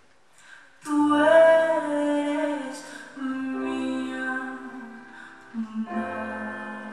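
Woman singing long, held phrases with upright double bass accompaniment in a live performance. The singing comes in about a second in after a brief hush and breaks off for a moment twice.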